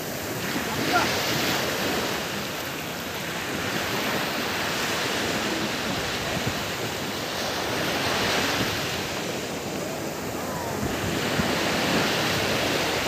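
Steady rushing of sea surf mixed with wind buffeting the microphone, swelling and easing every few seconds.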